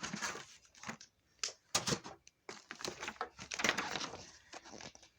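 Packaging rustling and crinkling in irregular bursts as items are handled and taken out of a box.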